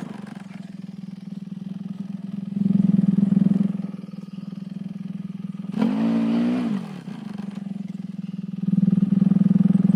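A vehicle engine running steadily, picking up twice: about two and a half seconds in and again near the end. One low cow moo lasting about a second comes about six seconds in.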